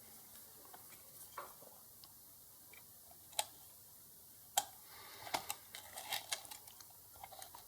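Sharp clicks and light taps from handling a multimeter test lead and ground wire: a single click about three and a half seconds in, a louder one a second later, then a run of small clicks.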